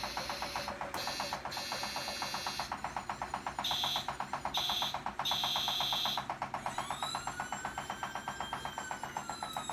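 A toy sound chip salvaged from broken toys, playing through a small speaker: a rapid electronic pulsing with three short high beeps in the middle, then a long wailing tone that rises and slowly falls near the end.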